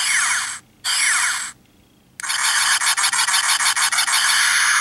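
The sound module of a Revell Snaptite build-and-play Millennium Falcon plays its electronic sound effects through a small, tinny speaker: two short bursts falling in pitch, then, after a brief pause, a longer fluttering noisy sound lasting about three seconds.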